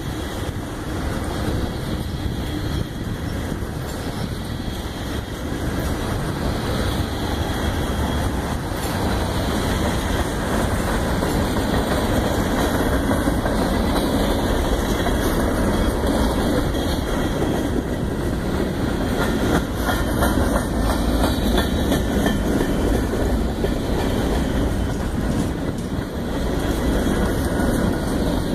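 CSX freight train rolling past, a steady rumble of cars and wheels with faint clacking over the rail joints, growing a little louder in the first several seconds.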